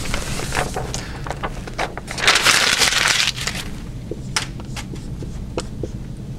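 Dry-erase marker and eraser working on a whiteboard: a run of short scratchy strokes and taps, with a louder, longer rubbing stretch about two seconds in.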